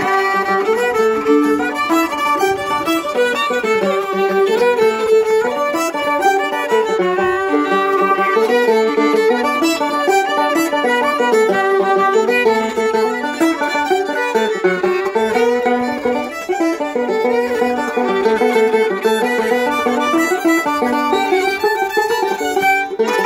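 Two fiddles playing a quick folk tune together, with a banjo plucking along underneath. The music is continuous, with rapid notes throughout.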